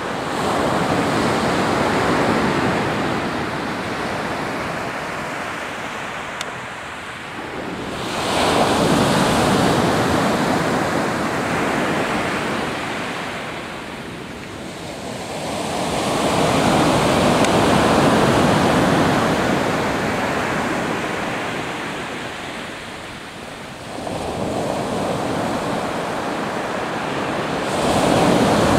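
Pacific Ocean surf: waves breaking and washing up the shore, the rush of water swelling and fading about every eight seconds.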